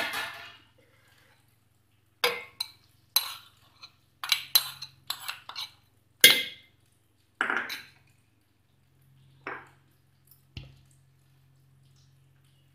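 Irregular metal clinks and scrapes, a dozen or so between about two and eleven seconds in, some with a short ring. They come from a small frying pan being tapped and scraped against a stainless steel mixer-grinder jar as fried green chillies and onion are tipped in.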